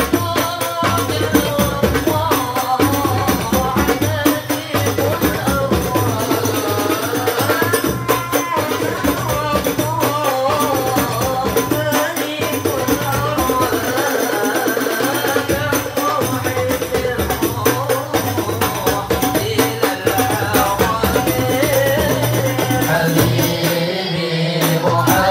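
Boys singing an Islamic devotional song (sholawat/qasidah) into microphones, accompanied by frame drums (rebana) beaten in a steady rhythm.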